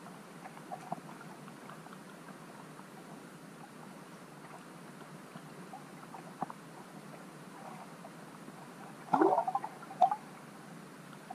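Sound picked up by a camera sitting underwater in a lake: a steady low hiss with scattered faint clicks, then a short louder burst of gurgling about nine seconds in and one more click a second later.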